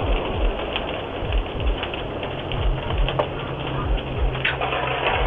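Structure fire crackling and popping, a dense crackle with frequent low thuds, picked up by a doorbell camera's microphone; a steady low hum joins about two seconds in.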